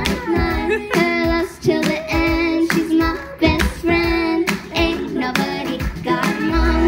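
A girl singing through a handheld microphone over a backing track, holding long notes, with a sharp beat about twice a second.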